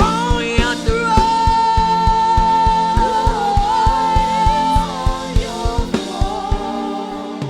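Live gospel worship music: a voice holds one long note over the band and a steady drum beat, and the beat thins out near the end.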